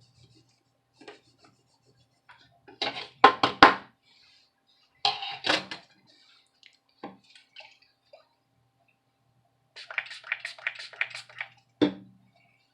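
Clatters and rubbing as laptop parts are handled and scrubbed with an old toothbrush, with a run of quick brushing strokes near the end followed by a single knock.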